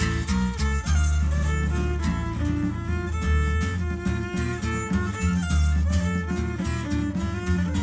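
Instrumental Mixtec string-band music: a violin melody over plucked guitar and a deep bass line.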